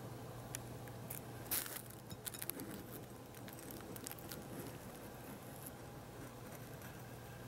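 Steady low hum with a scatter of light clicks and a short rustle about a second and a half in, then only the hum.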